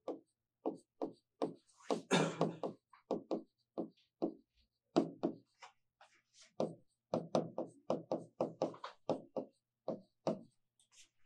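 Chalk writing on a blackboard: a quick, uneven run of short taps and knocks as each letter is struck out, with one longer scratchy stroke about two seconds in.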